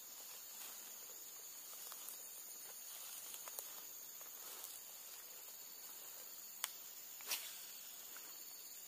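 Steady high-pitched drone of insects, with faint footsteps through grass and two sharp clicks a little over halfway through.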